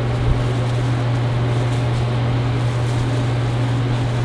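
Steady low mechanical hum with an even rushing noise from running kitchen equipment, and a short knock about a third of a second in.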